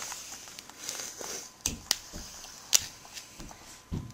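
A knife cutting and picking into a baseball's stitching and wound yarn: a few sharp clicks and snips over faint scraping and rustling.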